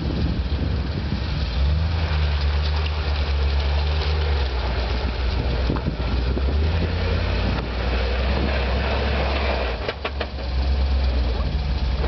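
Land Rover Defender 90's engine running at low revs as the 4x4 crawls through deep ruts off-road, a steady low engine note that eases off and picks up again a few times.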